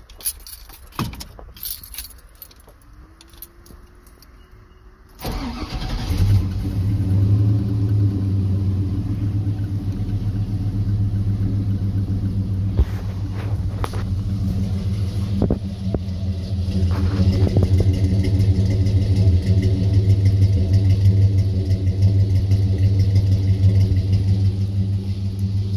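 A few clicks, then about five seconds in the 1978 Chevrolet Silverado Big 10's 6.0-liter V8 starts and settles into a steady idle, getting a little louder in the second half.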